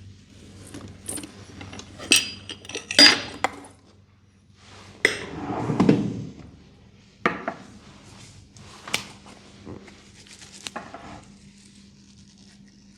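Small hard objects being handled and set down: a series of sharp clinks and knocks, a few ringing briefly. They come thickest a couple of seconds in and thin out towards the end.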